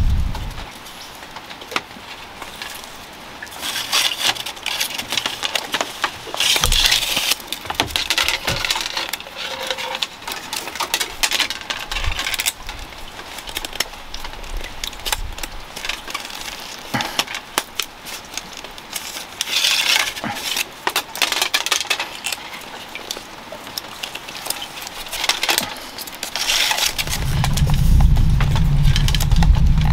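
Thin, dry bamboo strips being split and handled for basket weaving: scratchy crackling and quick clicks coming in clusters. A steady low rumble comes in near the end.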